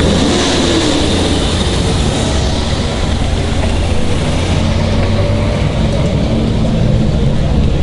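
Cars driving past with a steady low engine and exhaust rumble, and a brief rise and fall in engine pitch about half a second in.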